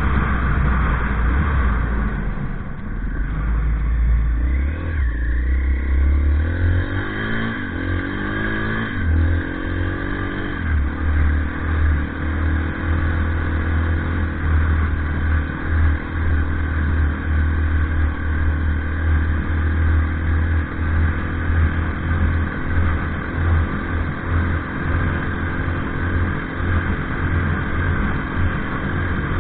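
Engine of the off-road vehicle carrying the camera, pitch rising several times in a row about five to ten seconds in as it accelerates, then running steadily. Heavy wind rumble on the microphone throughout.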